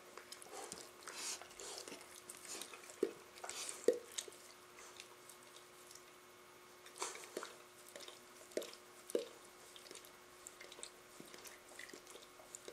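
Quiet, scattered clicks and wet smacking sounds of dogs mouthing and play-biting each other, over a faint steady hum.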